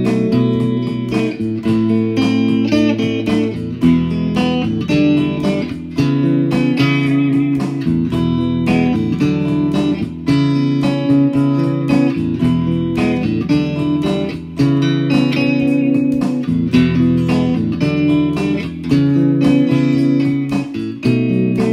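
Instrumental music led by a plucked guitar, over a low bass line that changes about every two seconds.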